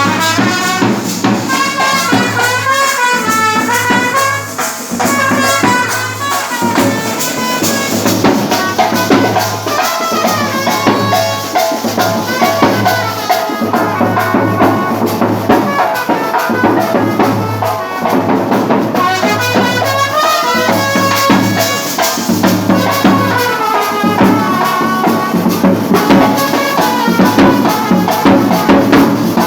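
Wedding band party playing: a wavering reed melody in the manner of a shehnai leads over brass, with a dense beat of drums and jingling, rattling percussion.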